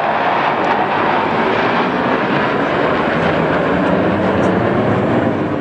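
Jet engines of a formation of military demonstration jets flying past: a loud, steady rush of jet noise.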